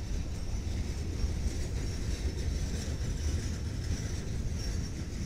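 Freight train cars rolling past: a steady low rumble of wheels on rail.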